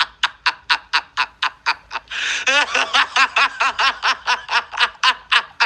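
A person laughing hard in quick, even bursts, about five a second, with a longer high-pitched sound about two seconds in, played back from a phone voice message.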